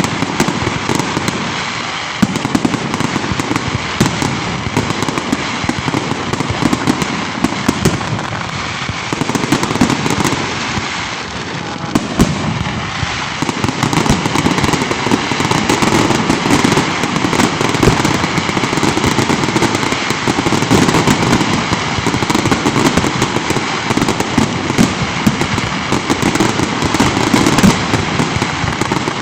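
Fireworks going off in a dense, continuous barrage of rapid crackling pops over a low rumble of bangs, easing off slightly about halfway through.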